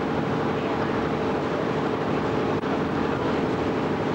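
Boat engine running steadily, a constant drone under a wash of noise.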